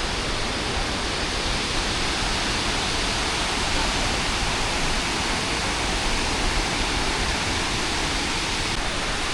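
Tumpak Sewu waterfall's falling water: a steady, even rush.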